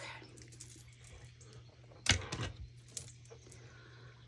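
Small clicks and taps of crafting tools and paper being handled on a desk, with one louder sharp knock about two seconds in, like a hard tool being set down.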